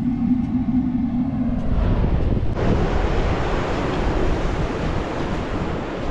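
A steady low hum for the first couple of seconds, then from about two and a half seconds in, wind buffeting the microphone over the rush of ocean surf.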